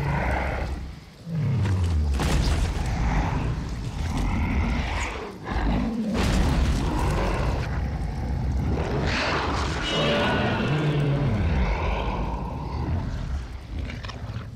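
Godzilla's roar from the 1998 film: deep, drawn-out growls that fall in pitch, heard several times over a heavy low rumble.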